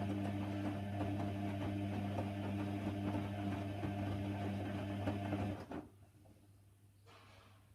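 Hoover Nextra washer-dryer running with a steady low hum that cuts off suddenly about five and a half seconds in. A faint brief swish follows about a second and a half later.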